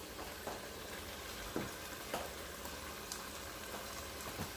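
Cubed pork frying in a pot over a gas flame: a faint, steady sizzle with a few small pops scattered through it.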